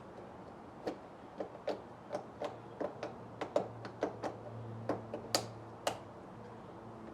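A run of about fourteen sharp clicks, unevenly spaced at two or three a second, with a low steady hum coming in about halfway.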